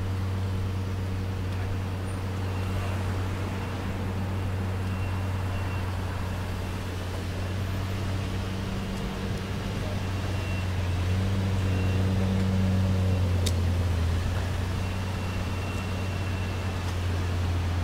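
Lexus LFA Nürburgring Edition's 4.8-litre V10 idling steadily, growing slightly louder about twelve seconds in.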